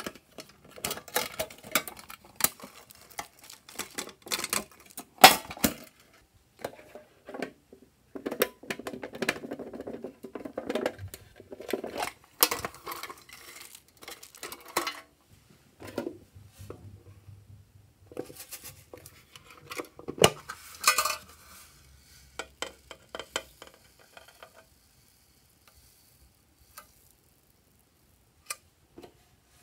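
Plastic lids and containers being handled: hard plastic clicks, knocks and rattling as shaped covers and a tub are lifted off plastic trays. The clatter dies away about three-quarters of the way through, leaving a couple of single clicks near the end.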